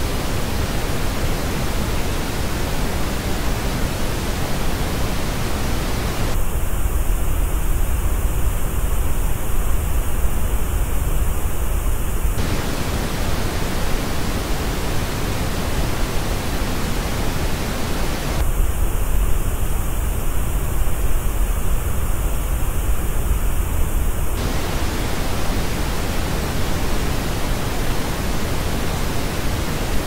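Pink noise test signal, steady hiss that switches about every six seconds between the flat original reference and a version shaped by the Sennheiser Accentum Plus headphones' frequency response, in which a narrow band high in the treble drops out, giving a duller, hollower hiss.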